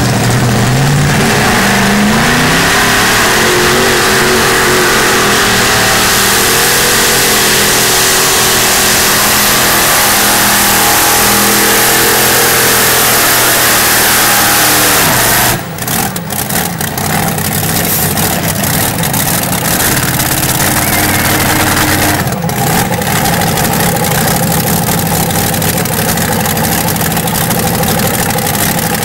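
Modified pulling tractor's engine revving up at launch and running hard at high revs for about fifteen seconds as it drags the weight-transfer sled. About halfway through, the revs drop suddenly with a falling pitch, and an engine runs on at lower speed.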